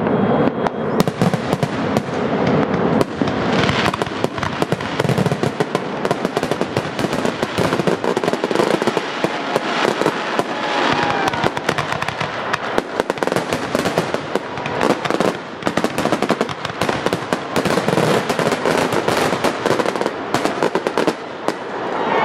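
Aerial fireworks shells bursting in a dense, continuous barrage of bangs and crackling, with many reports overlapping, several a second.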